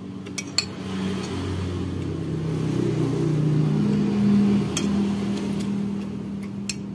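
A motor vehicle's engine running and growing louder to a peak about halfway through, then easing off, as it passes. A few light clinks of a metal spoon against a ceramic plate.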